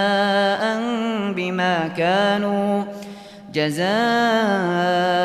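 A man recites the Qur'an in melodic tajweed, drawing out the word 'jaza'an' in long held, gently wavering notes. There is a short breath pause about three seconds in before he continues.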